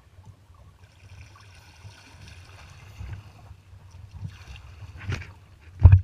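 Kayak paddle strokes in the water, a few sudden splashes about a second apart, the loudest near the end, over a steady low rumble.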